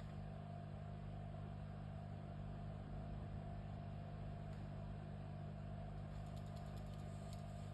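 Steady low electrical hum and whir of running equipment, with a few faint clicks near the end.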